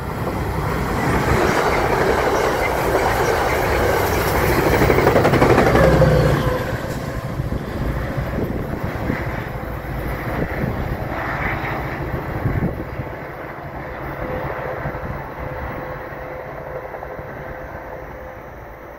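Metro-North train of Comet V passenger coaches running through a station at speed without stopping: wheels rumbling and clacking over the rails, loudest about five to six seconds in, then fading steadily as the train recedes.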